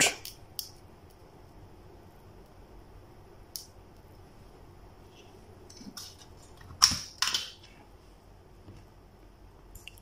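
Mains plug pulled out of a power-strip socket: two sharp clacks about half a second apart, after a light tick earlier on.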